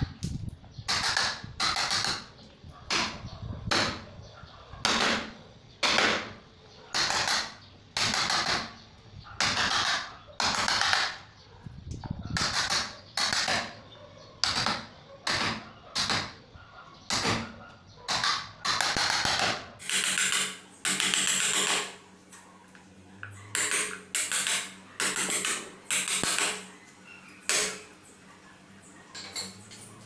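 Hammer striking a wood chisel, cutting a shallow mortise into a wooden door jamb: steady blows about one a second, stopping shortly before the end.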